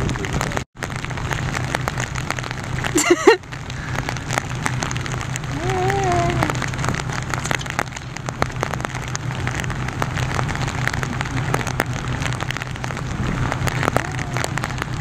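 Steady outdoor hiss aboard a boat, with the boat's engine humming low underneath and a frequent light crackle like rain. A sudden loud bump about three seconds in is the loudest moment.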